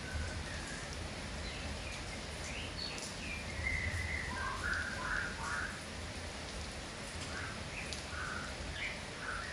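Sooty-headed bulbul giving short, chirpy call notes and quick up-and-down phrases, busiest in the middle, over a steady hiss of rain.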